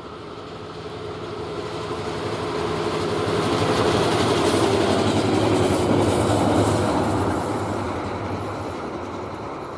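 A freight train passing by, growing louder to a peak about halfway through and then fading as it moves away.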